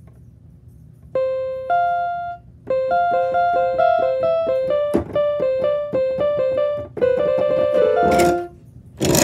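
Piano keyboard played by hand: a simple melody of single notes beginning about a second in, with a quick run of notes near the end and a slide along the keys starting just before it ends.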